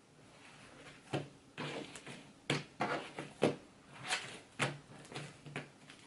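Slime being squished and folded together by hand, making a string of irregular wet squelches and sharp pops, about two a second.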